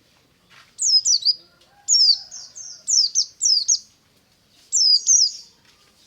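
White-eye (pleci) singing: four short bursts of quick, high, downward-sweeping chirps with brief pauses between.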